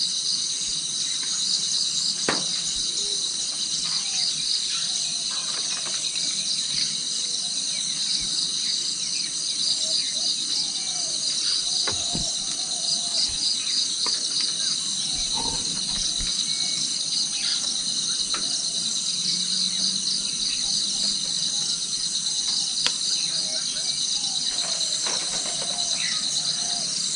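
Steady chorus of crickets and other insects, a high continuous trill, with scattered short chirping calls under it.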